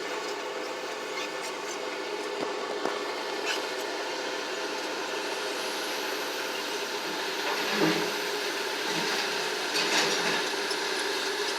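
Heavy earthmoving machine's diesel engine running steadily, with a few metallic clanks, the loudest about eight seconds in and another about ten seconds in.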